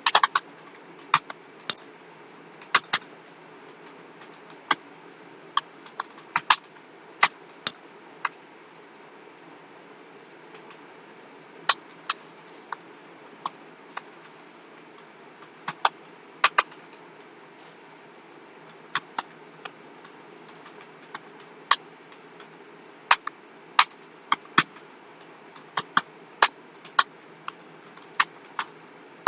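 Computer keyboard keys clicking at an irregular pace, single strokes and short runs with pauses of a few seconds between, over a steady background hiss.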